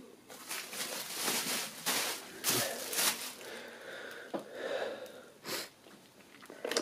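Plastic bubble wrap being handled, rustling and crinkling in short bursts, most of them in the first half.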